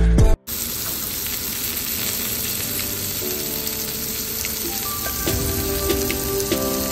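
Scotch fillet beef steaks sizzling steadily in oil in a non-stick frying pan. Music plays before the sizzle and stops suddenly about half a second in; quiet music returns under the frying in the second half.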